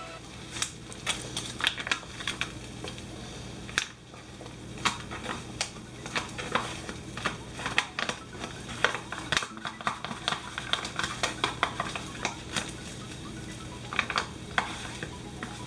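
Rapid, irregular scraping and tapping of a spatula working tuna out of a foil pouch into a frying pan of egg whites, with the pouch crinkling, over a steady low hum.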